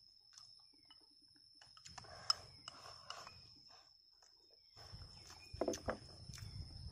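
Eating at close range: chopsticks tapping against a small ceramic bowl, with a sharp click about two seconds in, and bouts of chewing. A faint steady high-pitched whine runs underneath.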